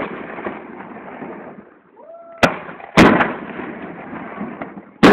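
Aerial fireworks shells bursting. The echoing rumble of one burst dies away, then about two and a half seconds in a sharp crack is followed half a second later by a louder bang that rolls off in echo, and another bang comes right at the end.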